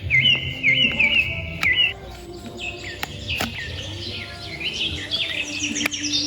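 Rapid, evenly repeated high bird-like chirps. They run in quick runs in the first two seconds, then come again more densely and higher near the end, with a few sharp clicks between them.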